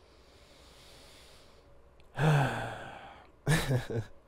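A man's long, breathy sigh with his voice falling in pitch, about two seconds in, after a faint breath in, then a short chuckle of a few quick pulses near the end.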